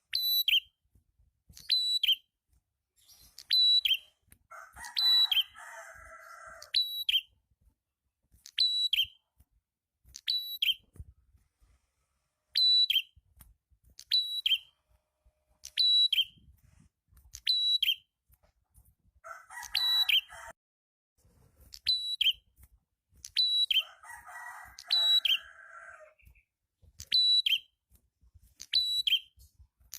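Prenjak kepala merah (prenjak atas) calling: a sharp, high, slightly falling note repeated evenly about every second and a half. Three times a lower, buzzy chattering call cuts in, lasting a second or two each.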